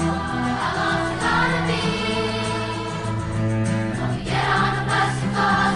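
Music with a choir singing over sustained accompaniment.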